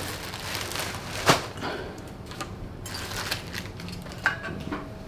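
Handling noise as dishwasher installation parts and their packaging are picked up and set down: light rustling, one sharp knock about a second in, then a few small clicks and a soft thump.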